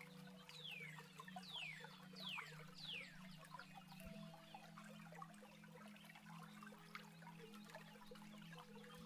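Faint birdsong over a trickling water stream. Early on, a bird gives four clear down-slurred whistles about 0.7 s apart, amid scattered short chirps, with a low steady hum underneath.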